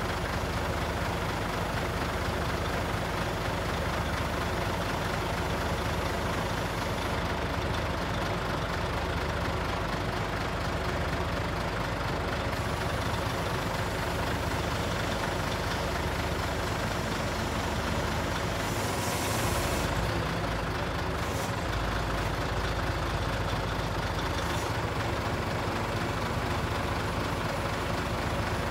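Scania truck's diesel engine running steadily, powering the hydraulics of its Hiab 220 C loader crane as the boom is raised and extended. A brief hiss comes about two-thirds of the way through.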